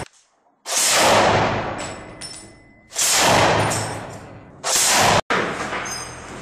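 A tripod-mounted heavy machine gun is fired in a room. There are three loud reports, at the start, about 3 s in and about 4.7 s in, each dying away in a long echo with a metallic ring.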